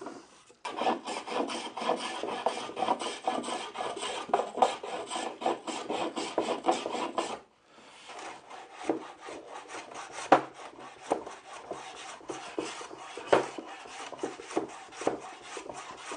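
Steel block plane cutting along the edges of a wooden stool in quick, short strokes, taking off the sharp edges and rounding them over. The strokes run close together at first, stop briefly about halfway, then come more spaced out with a few sharper knocks.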